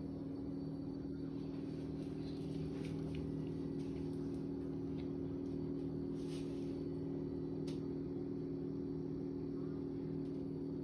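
A steady low mechanical hum holding an even pitch, with a few faint light clicks partway through.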